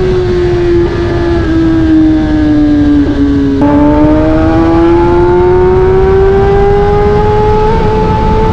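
Kawasaki ZX10R's inline-four engine through an Akrapovic carbon exhaust, heard while riding. The engine note sinks slowly for about three and a half seconds, steps up abruptly, then climbs steadily as the bike pulls.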